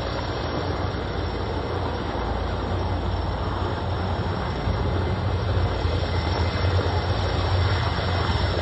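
Sikorsky S-64 Air-Crane heavy-lift helicopter descending to land, its twin turbines and main rotor making a steady, heavy rumble that grows a little louder about halfway through as it comes in closer.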